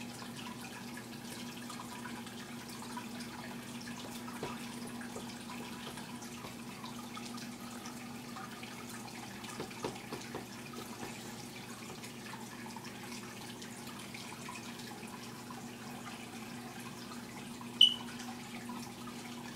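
Aquarium water trickling and splashing from the tank's filter, with a steady low hum under it. A few faint ticks about ten seconds in, and one sharp click near the end.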